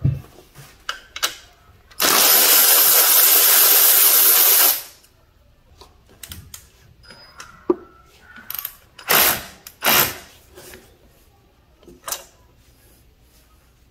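A power tool runs steadily for about three seconds, backing out a 12 mm bolt from the alternator mounting bracket on a 3.8L V6. Scattered short clicks and knocks of metal tools and parts follow.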